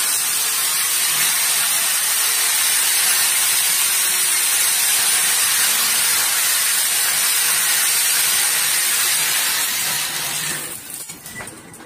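Electric drill boring into a plastered masonry wall, running steadily with a high whine, then winding down a little before the end.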